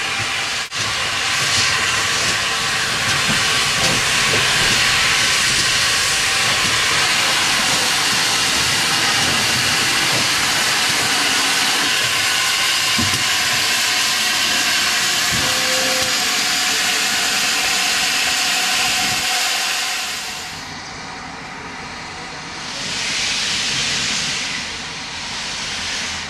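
Steam locomotive's safety valves blowing off: a loud, steady hiss of escaping steam from GWR 'Dukedog' 4-4-0 No. 9017. About 20 seconds in it drops away, and a shorter swell of steam hiss follows near the end.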